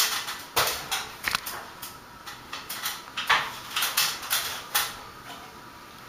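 1991 SMC Promo Deluxe 36-inch bottom-mount ceiling fan running on low speed, about 120 RPM, with a faint steady hum. Over it comes a run of irregular rustling whooshes that fade out near the end.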